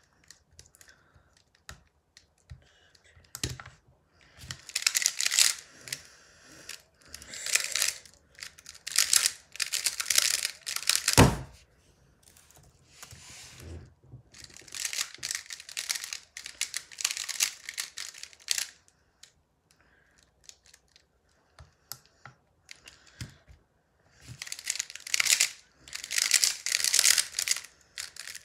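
Square-1 puzzle being turned quickly in bursts: rapid plastic clicking and scraping of the layers, with short pauses between bursts and one sharp knock about eleven seconds in.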